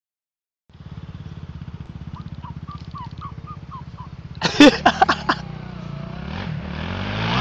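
A vehicle engine idling with an even, pulsing beat, with a faint string of short high chirps. Then four short, loud horn beeps in quick succession, and the engine rises in level near the end.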